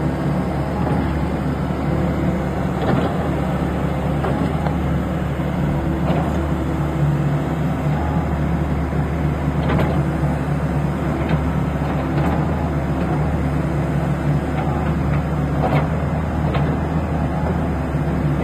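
Kobelco SK75 excavator's diesel engine running steadily, with a few short knocks now and then.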